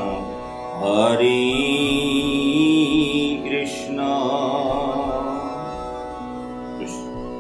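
Devotional chanting music: a slow melody of long-held notes with a wavering pitch.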